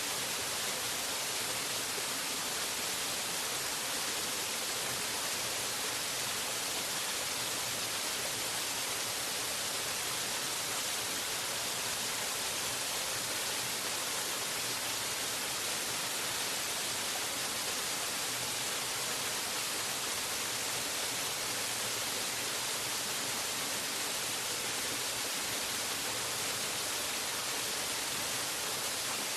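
Waterfall: the steady rush of falling water, an even hiss strongest in the high range that stays unchanged throughout.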